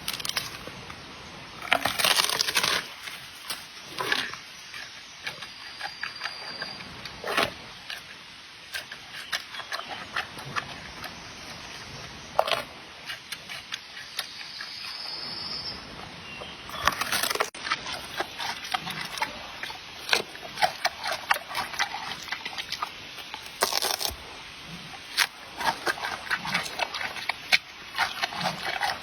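Giant panda moving about and handling things: irregular crunches, scrapes and clicks. There are louder bursts about two seconds in, around seventeen seconds and again near twenty-four seconds, and quick runs of small clicks through the second half.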